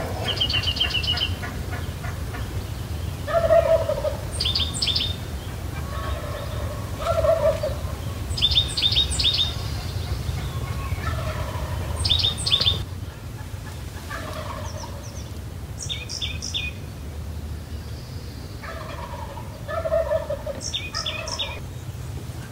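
Wild turkeys calling in short bursts, a set of calls about every four seconds, with clusters of higher quick chirping notes between them, over a steady low rumble.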